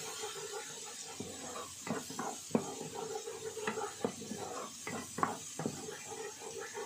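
Wooden spatula scraping and knocking around a granite-coated frying pan in quick irregular strokes while food fries in oil with a faint sizzle.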